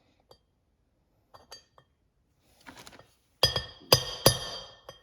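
Three sharp metal-on-metal strikes about half a second apart, each leaving a bright metallic ring, after a few light ticks. A tool is being struck to bend the staked tab of the transmission's oil pump bushing back out so the bushing can be removed.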